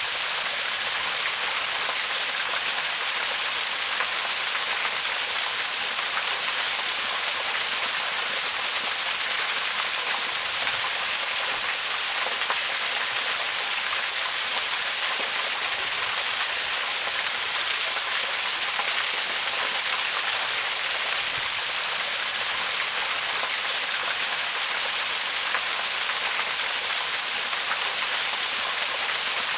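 Waterfall: a steady, unbroken rush of falling water, bright and hissy, with little low rumble.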